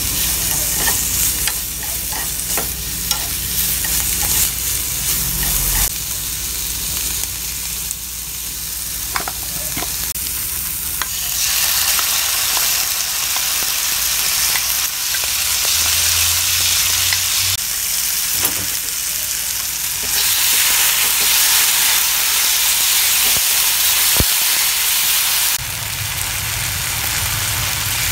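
Sliced bitter melon sizzling as it is stir-fried in a nonstick frying pan, with occasional clicks of chopsticks against the pan. The sizzling gets louder partway through.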